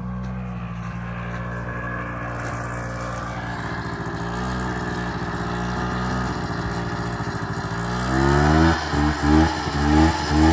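The snowmobile engine of a homemade riding lawnmower running steadily, then revving up and getting louder about eight seconds in, surging in even pulses through the last couple of seconds.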